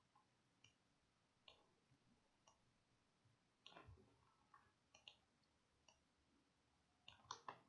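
Faint computer mouse clicks, a scattered handful with a quick cluster near the end, over near silence.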